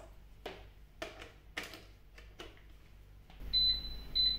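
Ultenic air fryer's control panel beeping as its buttons are pressed to set the preheat: two high beeps near the end, after a few light clicks of the plug and cable being handled.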